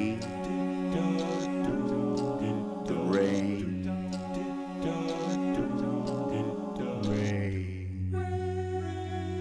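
A cappella vocal group singing held chords without words, with a swooping sound recurring about every four seconds. A low bass note comes in about seven seconds in and holds.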